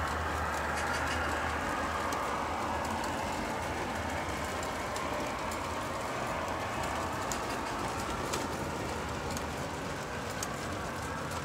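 A 1:48-scale LEGO model of a Union Pacific gas turbine electric locomotive running on LEGO track, pulling freight cars. Its Tsunami 2 sound decoder plays a steady gas turbine whine through a small 40 mm speaker, over the running of its LEGO train motors. Scattered sharp clicks come from the wheels on the plastic track.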